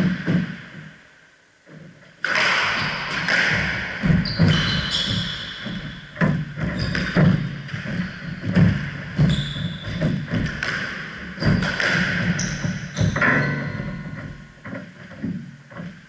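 Squash rally: the ball thuds off the racket strings and the court walls again and again, among the players' footsteps and shoe squeaks on the wooden floor. The rally starts after a brief lull about two seconds in.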